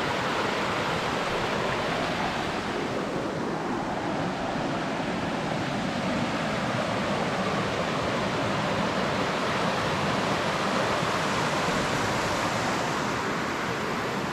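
Mountain stream rushing over rocks below a bridge: a steady, even rush of water.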